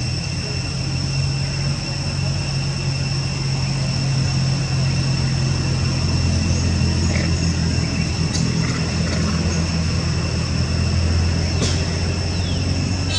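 Steady low hum of a running engine, its pitch shifting slightly about halfway through, with a steady high-pitched whine above it and a couple of faint clicks near the end.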